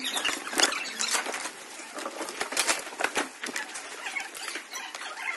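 Clear plastic blister trays and plastic bags being handled: crinkling and rustling with many sharp plastic clicks and taps as fireworks packs are assembled by hand.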